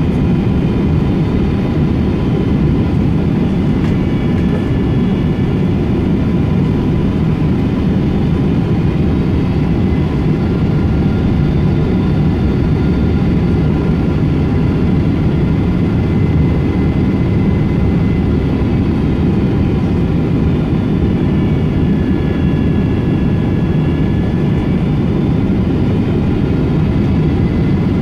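Boeing 777-200 airliner in flight, heard inside the cabin: a steady low rumble of airflow and engines, with faint whining engine tones that drift slightly up and down in pitch.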